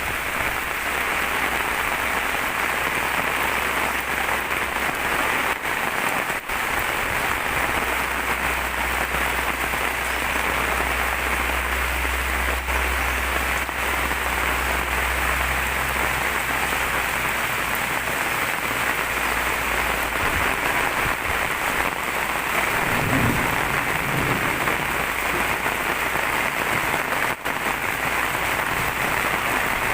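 Steady rain falling, an even dense hiss of drops, with a low hum underneath that fades out a little over halfway through.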